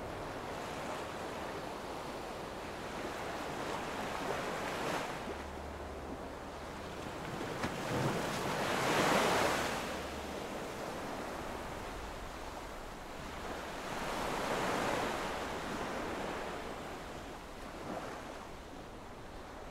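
Ocean surf washing in, swelling and fading every few seconds, with the biggest surge about nine seconds in, and some wind.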